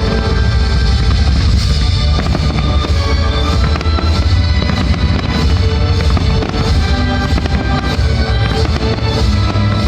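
Fireworks shells bursting and crackling over loud music, as in a pyromusical display.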